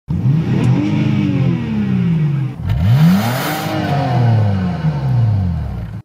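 A car engine revved twice while parked: each time the pitch climbs quickly and then falls back slowly toward idle, the second rev a little louder. The sound cuts off abruptly at the end.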